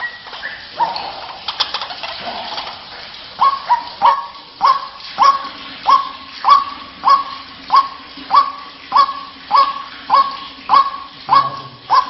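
White-breasted waterhen calling with a series of abrupt, honking 'wak' calls. They are irregular at first, then about three seconds in settle into an even rhythm of a little under two calls a second.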